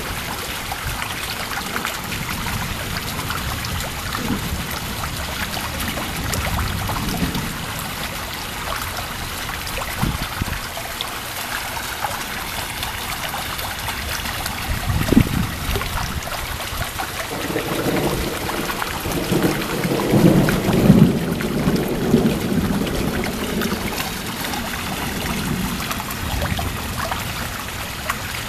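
Steady rain from a supercell thunderstorm, with thunder: a short sharp clap about halfway through, then a longer rumble a couple of seconds later that builds and peaks about two-thirds of the way in before fading.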